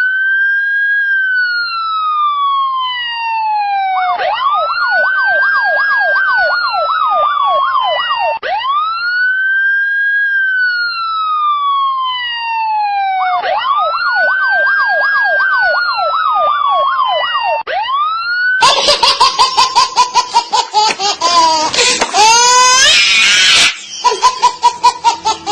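Siren cycling between a long falling wail and a fast warbling yelp, switching every four to five seconds. About 19 seconds in it gives way to a louder, rapidly pulsing sound.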